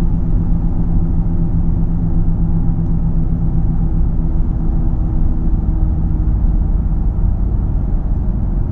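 Steady low hum with road rumble inside the cabin of a 2012 Ford Fusion SEL driving at highway speed. The hum persists even though the tyres are new and balanced, and it cannot be placed at the front or the back.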